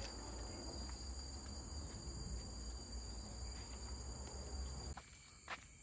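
Tropical forest insects buzzing, with steady high-pitched tones over a low rumble. About five seconds in the sound cuts abruptly to a quieter insect background with a different high tone.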